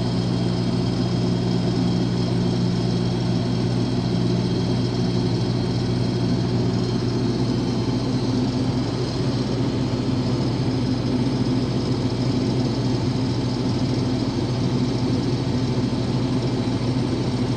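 Case IH 2188 combine running steadily while cutting wheat: an even drone of diesel engine and threshing machinery. One of its low tones drops out about seven seconds in.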